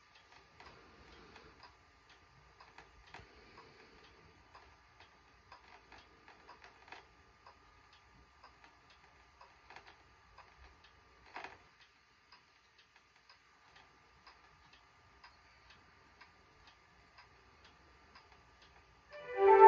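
Faint, even ticking, about two ticks a second, over a faint steady hum, with one louder click about eleven seconds in. Near the end, keyboard music from the television starts loudly.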